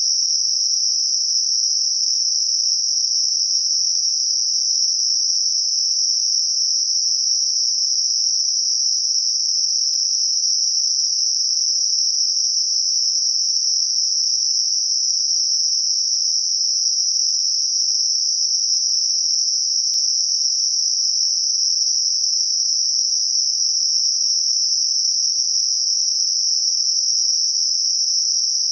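Synthetic Gaussian narrow-band noise centred on 5.5 kHz: a steady, unchanging high-pitched hiss confined to roughly 4 to 7 kHz, used as a masker for high-frequency tinnitus.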